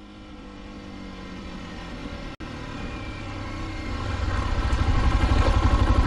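A motor vehicle engine running and growing steadily louder, with a brief dropout about two and a half seconds in.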